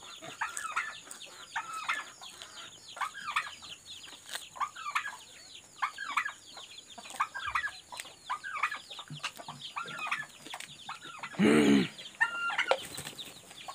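Chickens clucking, short calls repeating every second or so over a steady high-pitched hum. About eleven and a half seconds in, a brief loud, low, voice-like sound stands out as the loudest moment.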